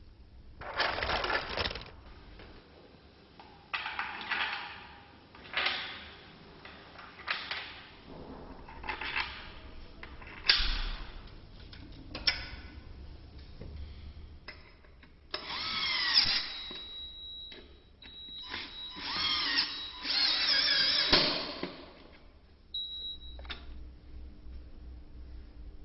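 Power tools in furniture manufacture: about ten short runs a second or two apart, several with a whine that rises and falls as the motor speeds up and slows.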